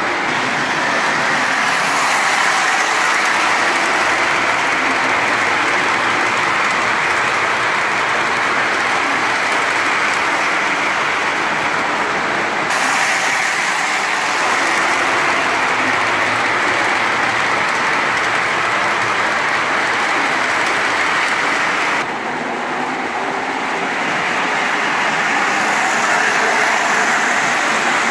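O gauge model trains running on the layout's track: a steady rolling rumble and hiss of metal wheels on the rails and the locomotive motors. The level dips slightly about 22 seconds in.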